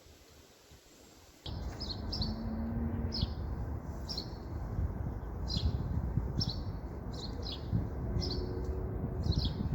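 A small bird chirping repeatedly, short high chirps about once a second, over a steady low rumble; it starts abruptly about a second and a half in.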